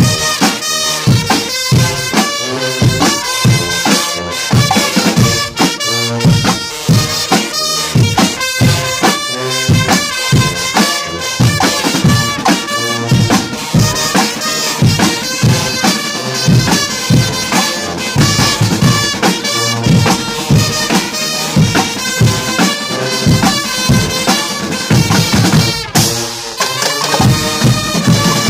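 Guggenmusik band playing loudly: trumpets and sousaphones playing the tune together over a steady beat from snare and bass drums.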